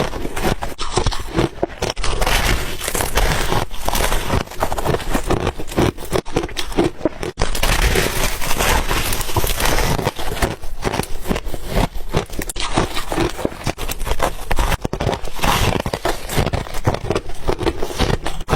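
Ice being chewed and crunched in the mouth, close to the microphone: a dense, continuous run of sharp crunches.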